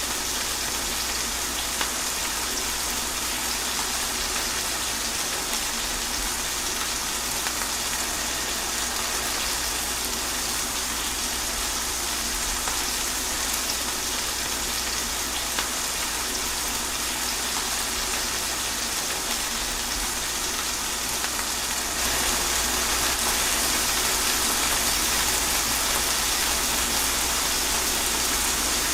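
Steady rain falling, an even hiss with no separate drops standing out, becoming a little louder about three-quarters of the way through.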